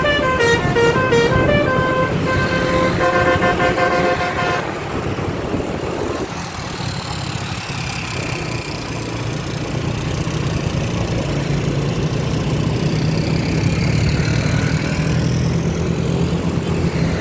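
A bus's multi-tone "telolet" horn plays a stepping, tune-like run of notes for about the first four and a half seconds, then stops. The bus engine's low rumble is left running.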